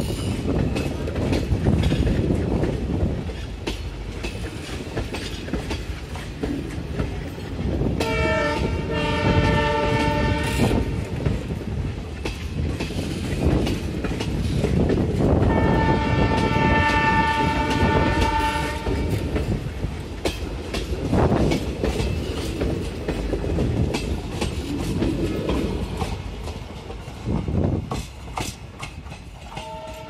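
Passenger coaches rolling past with wheels clattering over rail joints, while the WDM-3D ALCO diesel locomotive's several-tone horn sounds two long blasts, about eight and fifteen seconds in, the second longer. Near the end the train draws away and the clatter grows fainter as another horn blast begins.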